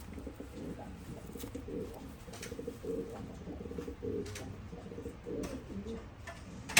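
Racing pigeons cooing in low warbling phrases, with a few faint clicks between and a loud short burst of noise at the very end.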